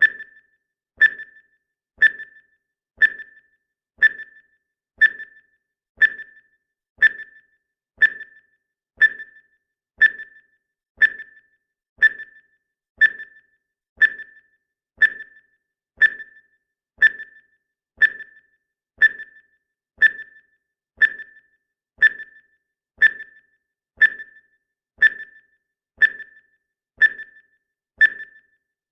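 Countdown timer's ticking sound effect: a short, slightly ringing tick once every second, perfectly steady.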